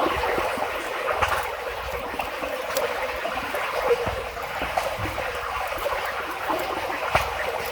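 Water running and trickling steadily through a culvert as a beaver-dam blockage is cleared, with a few light knocks.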